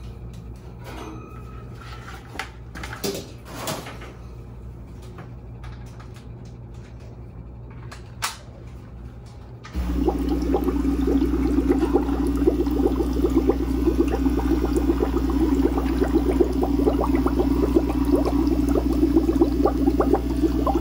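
A few light clicks and knocks of tubing and gear being handled in a plastic bucket. About ten seconds in, an electric air pump switches on with a steady low hum, and air bubbles continuously through the water, aerating a brewing compost tea.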